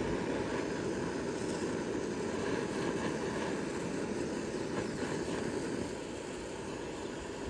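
Handheld gas torch burning steadily, its flame played over small metal parts in a pan.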